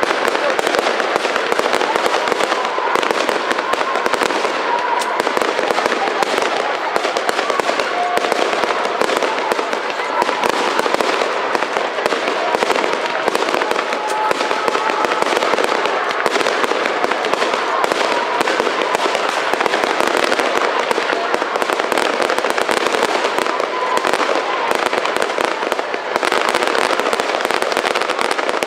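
Fireworks display: a dense, unbroken barrage of shell bursts and crackling, staying loud throughout.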